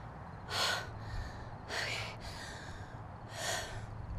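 A woman crying in three gasping, breathy sobs, about a second and a half apart.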